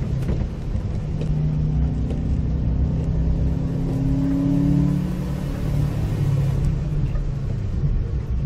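Citroën Xantia Activa's engine heard from inside the cabin, pulling up through the revs for about five seconds and then easing off, over a steady low rumble of road and rain noise.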